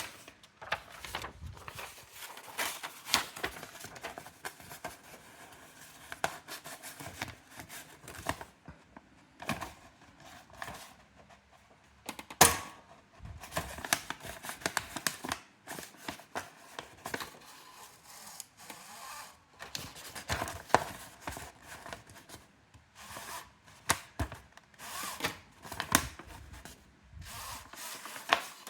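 Irregular clicks and knocks of the plastic and metal parts of a Brother AX-425 electronic typewriter being handled and worked on, with one louder knock about halfway through.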